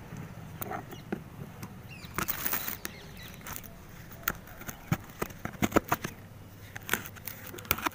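Packing tape and cardboard on a parcel being picked and scraped at by hand and knife, giving scattered taps, scratches and tape crinkles, which grow denser in the second half.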